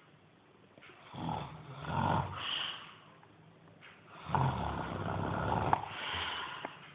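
Snoring: two long snoring breaths, the first about a second in and a longer one past the middle, with quiet pauses between.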